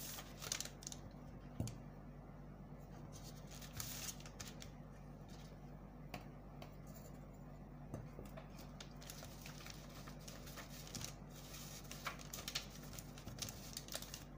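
Sheets of pattern paper being handled on a table: rustling and sliding in patches, with scattered light clicks and taps, over a faint steady low hum.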